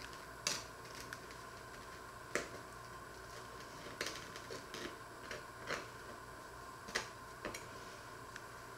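Table knife scraping over a crusty bread roll and tapping on a wooden cutting board: a handful of short, separate scrapes and clicks, over a faint steady hum.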